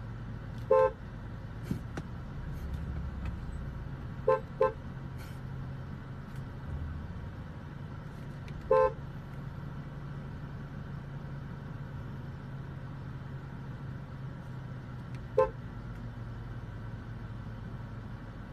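Car horn tooted in short blasts: one, then a quick double, then one, then a brief last tap, over the steady low hum of the car's engine running, heard from inside the cabin.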